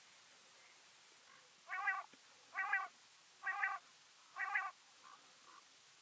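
Common quail calling: four short notes in a row, about a second apart, starting near two seconds in, then a few faint notes.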